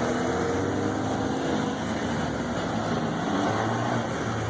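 Cars driving past one after another, their engine notes rising and falling as they pull away.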